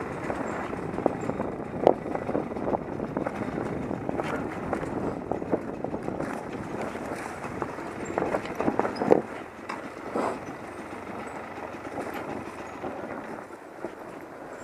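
Enduro dirt bike's engine running as it rides a rough forest trail, heard muffled from the rider's helmet camera. A few sharp knocks and rattles from the bike hitting bumps come through, the loudest about 9 seconds in.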